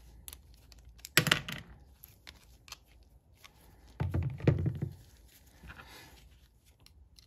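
Handling noise of a Sachs Huret rear derailleur's jockey-wheel cage and small metal parts in rubber-gloved hands: scattered light clicks, with two louder bouts of knocking and rustling, about a second in and about four seconds in.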